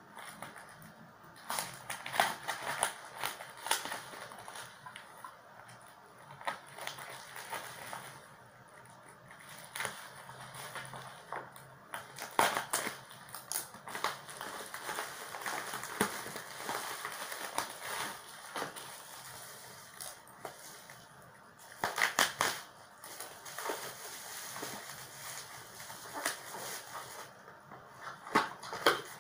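A parcel's packaging being cut open and handled: scissors snipping, and paper, cardboard and plastic wrapping crinkling and rustling, with irregular sharp clicks and crackles.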